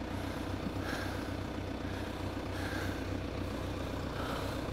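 Tractor engine running steadily with a low, even drone.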